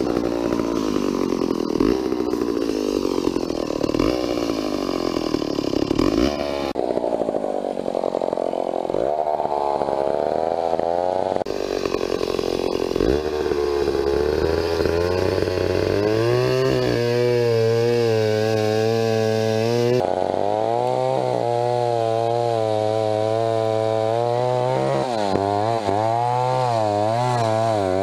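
Vintage McCulloch two-stroke chainsaw running at high speed in a cut through a big tree, its pitch wavering up and down as the load changes.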